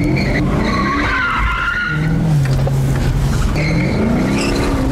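Maserati Quattroporte's V8 engine revving up and down while the tyres squeal through tight turns, heard from inside the cabin. The engine pitch climbs again near the end.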